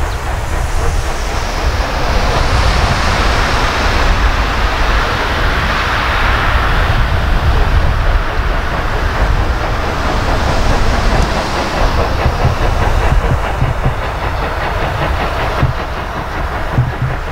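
Three-cylinder express steam locomotive 18 201 working its train past, the exhaust and the wheels clattering over the rails making a loud, continuous rumble. It is loudest through the middle and thins out near the end as the train draws away.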